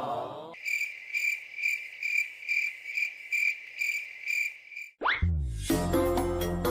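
Cricket chirping, a high pulsing trill about two to three times a second, which cuts off suddenly about five seconds in. A quick rising whistle-like sweep follows.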